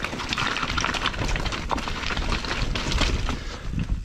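Mountain bike riding fast down a rough dirt trail: steady tyre and rolling noise with many sharp knocks and rattles from the bike over rocks and roots.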